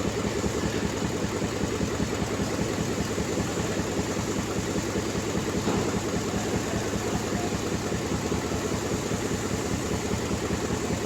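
Ford Expedition engine idling steadily with an even pulse, running with a misfiring cylinder.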